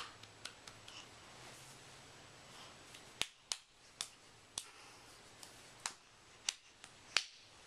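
A baby clapping her hands: about a dozen small, sharp claps at an uneven pace, a few close together, then pauses between them.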